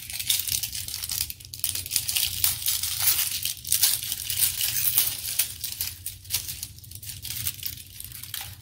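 Plastic wrapping on an L.O.L. Surprise ball crinkling as it is handled and picked at, a dense crackle of many small snaps that thins out after about six seconds.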